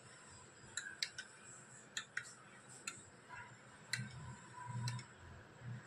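Steel spoon clinking lightly against a bowl while stirring milk with watermelon pieces and soaked sabja seeds: a few scattered light clicks, with soft low thuds near the end.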